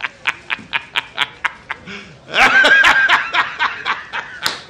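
A man laughing hard in a quick run of short, breathy bursts, about four a second, then a louder, longer laugh about two and a half seconds in.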